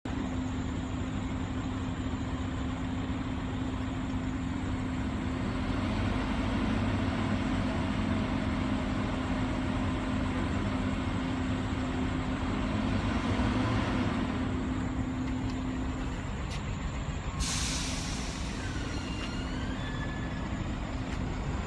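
Heavy truck running steadily, then a sharp air-brake hiss about seventeen seconds in, followed by a few short high chirps.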